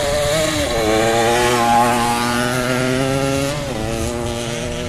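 Motocross dirt bike engine running at high revs, its pitch dipping briefly twice, about half a second in and again near the end, then climbing back and holding steady.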